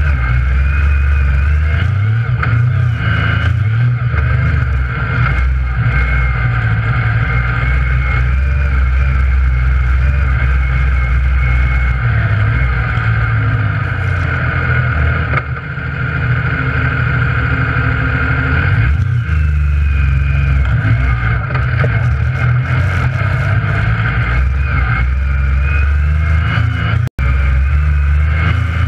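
Yamaha YXZ1000R side-by-side's three-cylinder engine running under way on a dirt trail, heard from inside the cab, its note rising and easing off as the throttle changes. The sound cuts out for an instant near the end.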